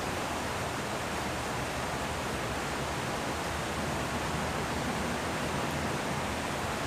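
River water rushing steadily over rocks, an even hiss with no breaks.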